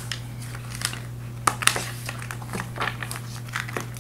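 Oracle cards being gathered off a table and shuffled by hand: irregular soft slaps, clicks and rustles of card stock, over a steady low hum.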